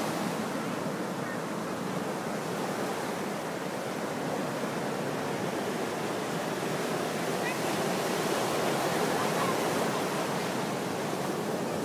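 Ocean surf breaking and washing up the beach: a steady rushing of waves.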